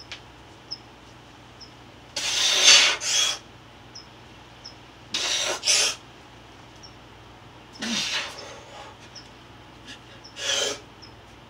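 A man's forceful, hissing breaths as he strains to bend a wrapped steel bar by hand: two quick pairs of exhalations about two and five seconds in, a breathy grunt near eight seconds, and one more hard breath near the end.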